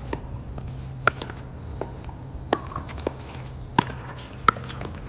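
Pickleball paddles striking the hard plastic ball in a doubles rally: a string of sharp pops at uneven spacing, the loudest about a second in and twice near the end.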